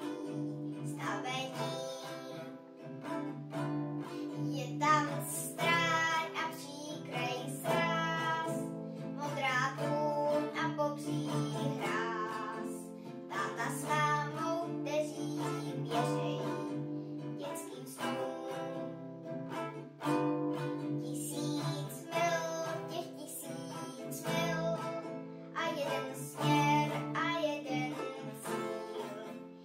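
A girl singing a song while strumming chords on a small nylon-string classical guitar.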